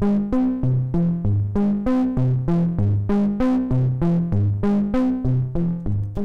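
Monophonic synthesizer bass sequence played through the Orobas dual tube amplifier module: short plucked notes, about three a second, stepping through a repeating pattern of low pitches, each note fading fast.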